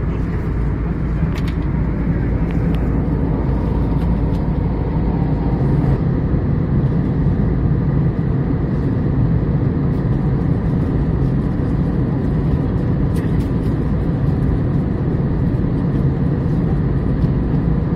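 Steady, even rumble of engines and airflow inside an Airbus A321neo airliner's passenger cabin.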